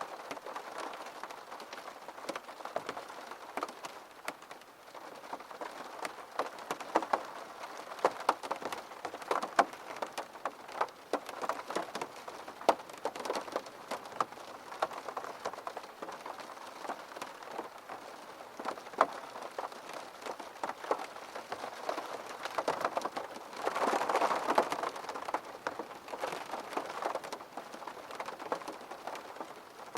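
Steady rain with many separate drops heard as sharp ticks over the hiss; the rain swells briefly a little after the middle.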